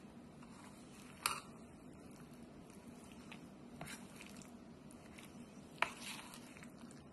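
Steel spoon stirring thick dosa batter with shredded carrot and greens in a stainless steel bowl: soft, wet squishing, with the spoon clinking sharply against the bowl twice, about a second in and near six seconds, and more lightly once between.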